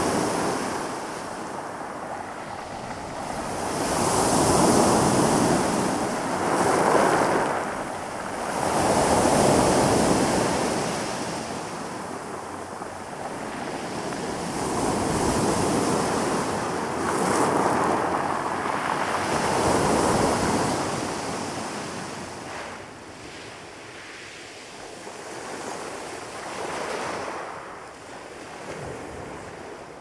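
Calm sea waves breaking and washing up a pebble beach, swelling and falling back every few seconds, gentler in the last third.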